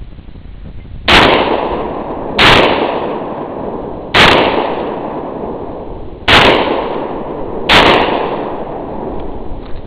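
Benelli M4 12-gauge semi-automatic shotgun fired five times at uneven intervals of one to two seconds, each loud shot trailing off over a second or so.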